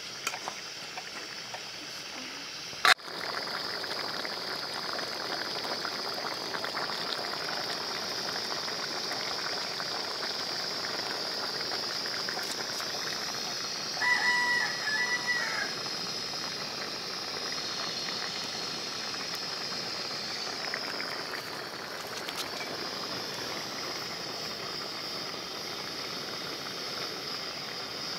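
A rooster crowing once, about 14 seconds in, over a steady hiss and a high, even insect drone. A single sharp click sounds about 3 seconds in.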